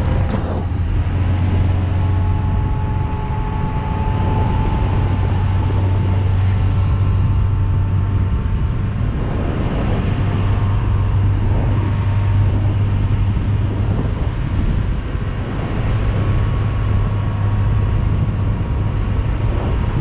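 Carburetted 350 V8 MerCruiser stern-drive engine running steadily at cruise, about 23 to 24 knots, with wind and water rushing past the hull.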